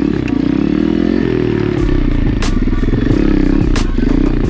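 Apollo RFZ 125cc pit bike's single-cylinder four-stroke engine revving up and down under throttle. From about two seconds in, sharp clicks and clacks join it.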